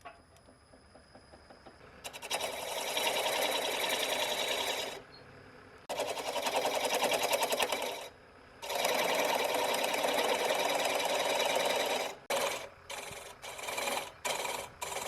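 A woodworking power tool with a fast, even rattle, running in three bursts of a few seconds each, then switched on and off in several short bursts near the end.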